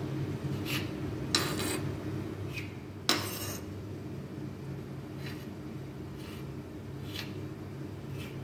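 Kitchen knife cutting bread into small cubes on a stone countertop: a short sharp tap each time the blade goes through and strikes the stone, at an uneven pace of roughly one a second, the loudest about three seconds in. A steady low hum runs underneath.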